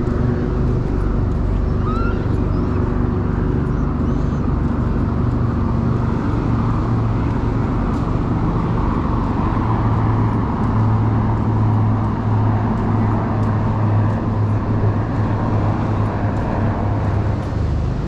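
Steady rush of ocean surf on a sandy beach with a heavy low rumble and no breaks.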